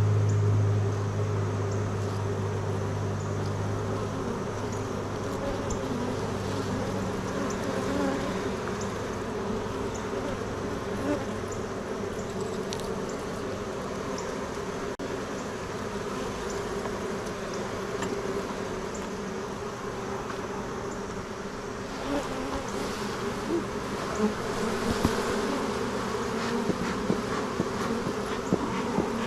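Honeybees buzzing around an opened hive, a continuous hum that is louder and deeper for the first few seconds and then steadier, with a few light clicks near the end.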